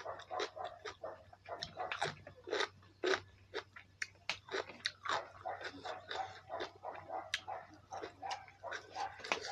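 Close-miked eating: wet chewing with many irregular mouth clicks and crunches, several a second, typical of mukbang chewing.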